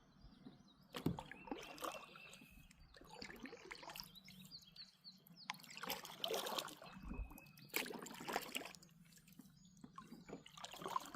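Kayak paddle dipping and pulling through the water in unhurried strokes, a swish about every two seconds, with water trickling off the blade between strokes.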